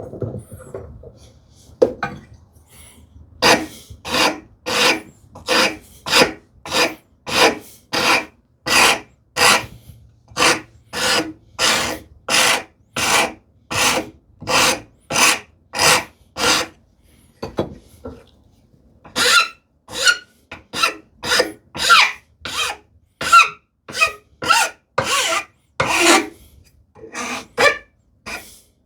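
Hand file stroked along the edge of a wooden tambour slat to ease its square corners. It makes a steady run of short rasping strokes, about three every two seconds, with a brief pause a little past halfway.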